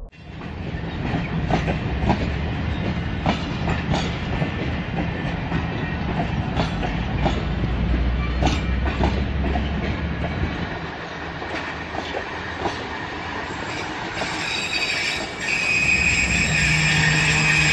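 Tezgam Express passenger coaches rolling past at low speed, their wheels rumbling and clanking irregularly over the rail joints. From about two-thirds of the way in, a steady high wheel squeal sets in as the arriving train slows.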